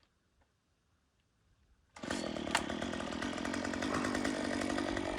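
Chainsaw running, coming in abruptly about two seconds in and then running steadily.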